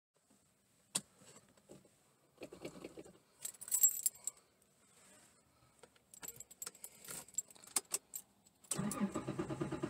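Scattered light clicks and short bursts of metallic jingling from small objects being handled, with a fuller, louder sound coming in near the end.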